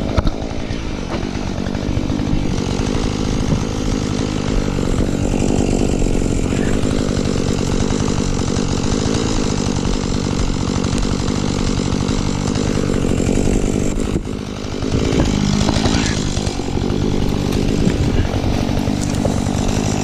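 Husqvarna 435 chainsaw's two-stroke engine running steadily, with a short dip in level about fourteen seconds in.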